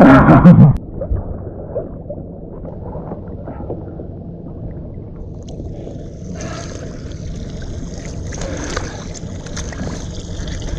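Sea water sloshing and gurgling around a half-submerged action camera, muffled and low at first. About six seconds in it becomes clearer splashing and lapping of water at the side of a boat.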